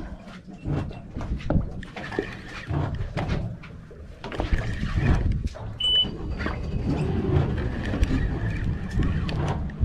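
Spinning reel being cranked hard to wind in a hooked, fighting fish, with irregular clicks and handling knocks over the steady low hum of a boat engine and wind on the microphone. A short high beep sounds about six seconds in.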